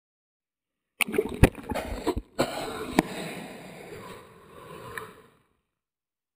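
Sea water splashing and sloshing right at the camera, with several sharp knocks among it. It starts abruptly about a second in and fades out shortly before the end.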